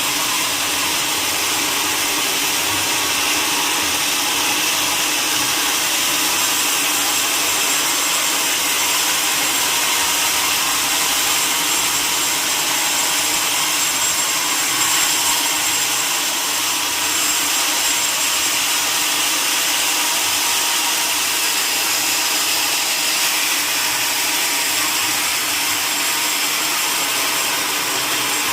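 Sawmill saw cutting steadily through a mahogany log: a loud, even, hissing noise with most of its energy high up and no break.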